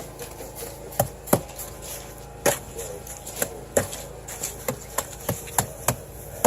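Irregular sharp knocks, one to three a second, of a tool striking a wheelbarrow while thick adobe mud is mixed with chopped straw.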